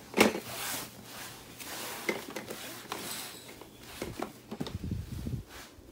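Plastic toy blocks clacking and knocking against a plastic activity cube as a baby handles them and pushes them into its shape-sorter holes, with one sharp knock just after the start the loudest.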